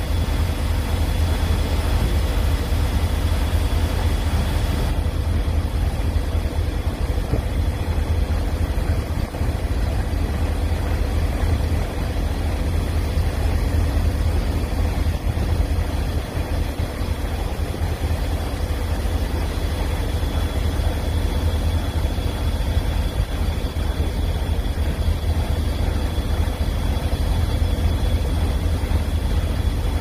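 Heavy ship machinery on a moored bulk cement barge and its tug running steadily: a loud low drone with a faint steady whine above it.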